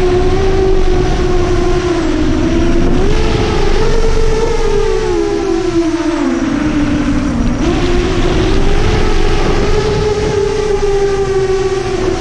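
A 7-inch FPV quadcopter's four Brother Hobby 2507 1500KV brushless motors are whining as they spin 7040 tri-blade props. The pitch dips about two seconds in, climbs, falls lower around six to seven seconds, then rises again as the throttle changes. Under the whine runs a low rush of wind on the onboard microphone.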